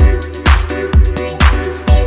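Background electronic dance music with a steady kick drum about twice a second.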